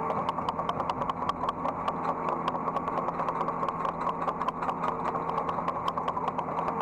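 Hydraulic excavator's diesel engine running steadily, with a low hum and a few held tones. Over it come sharp, regular ticks, about five a second.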